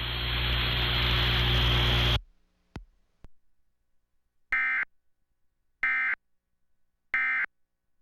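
A loud hiss with a low hum cuts off about two seconds in. After two faint clicks come three short, raspy data-tone bursts about 1.3 s apart: the SAME end-of-message code that an Emergency Alert System encoder sends to close the test.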